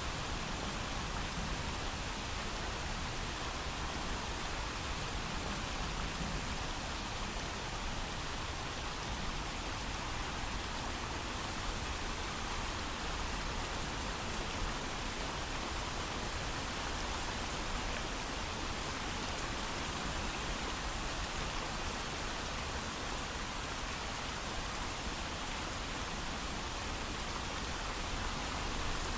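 Steady heavy rain falling, an even unbroken hiss with no thunder and no distinct drops standing out.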